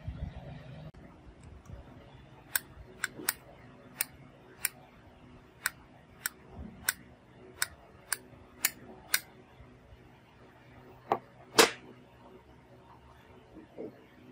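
Plastic S Pen tip of a Samsung Galaxy Note 9 tapping on the phone's glass screen: about a dozen sharp, irregular taps. Then a fainter knock and a louder one near the end.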